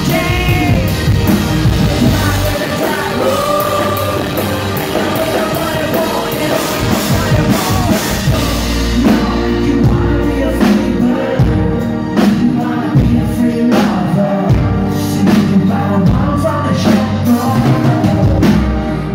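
Live rock band playing a song: male and female voices sing over electric guitar, keyboard and drums.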